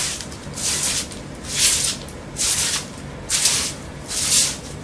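Grass broom bristles brushing across a rough plaster wall in repeated swishing strokes, about one a second, sweeping off loose flakes and dust from a damp-damaged wall.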